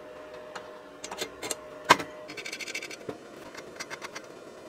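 Metal parts clinking and knocking as a pair of motorbike shock absorbers are handled against a steel-pipe cycle frame, with one sharper knock about two seconds in and a brief scrape just after.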